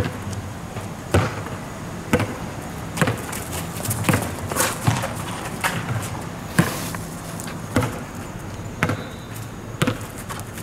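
Basketball bouncing on an asphalt court, about one bounce a second.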